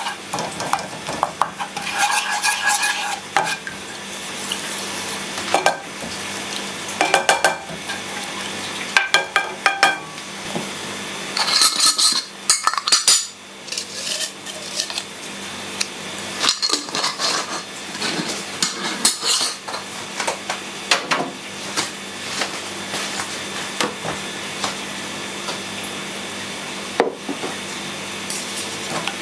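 Wooden spatula stirring and scraping against a ceramic-coated frying pan in irregular spells, over a steady low sizzle of chopped garlic heating in oil.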